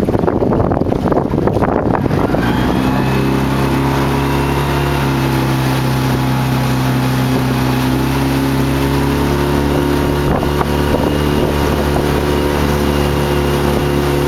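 Boat motor running at a steady idle, starting about two seconds in, over wind and water noise.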